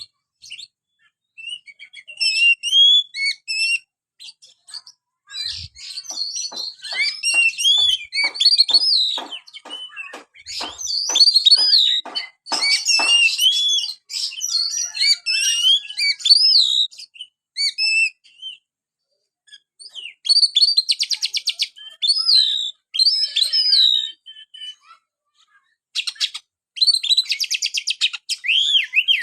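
Oriental magpie-robin (kacer) singing: varied whistled phrases in bursts with short pauses, a run of sharp clicking notes in the middle, and fast buzzy trills near the end.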